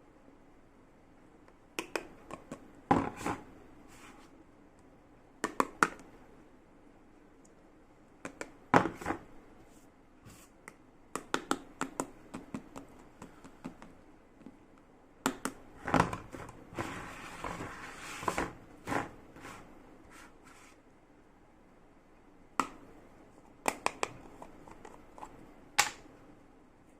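Slime handled by hand: scattered sticky clicks and pops in short clusters, with quiet gaps between and a brief rustling stretch about two-thirds of the way in.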